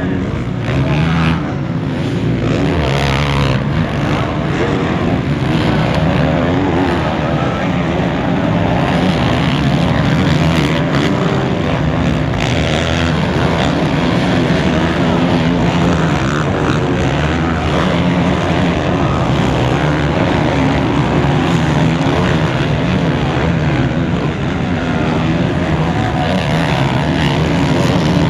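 Several motocross bikes racing on a dirt track, their engines revving up and down without a break as the riders accelerate, shift and back off.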